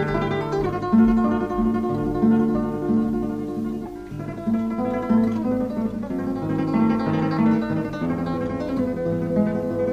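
Flamenco-style music led by plucked guitar, with a steady run of repeated short notes.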